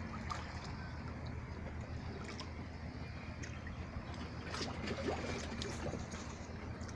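Sea water lapping and trickling, with scattered small clicks and splashes over a steady low rumble.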